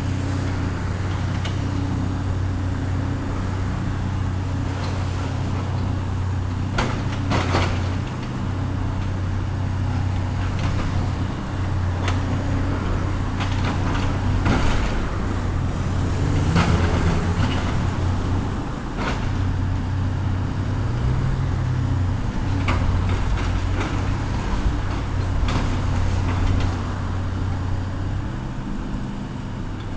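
Diesel engine of heavy demolition machinery running steadily, with scattered knocks and clatters of debris being broken and moved.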